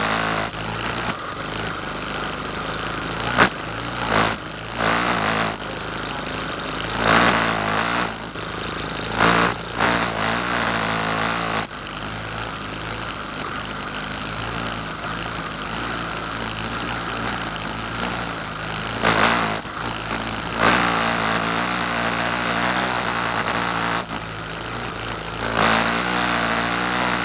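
ATV engine running steadily on a trail ride, with several short, louder bursts every few seconds.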